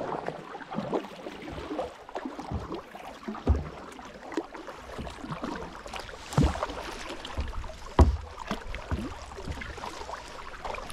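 Kayak paddle strokes in calm water: the blades dipping in and splashing, with dripping in between. A few strokes are louder, the loudest about eight seconds in.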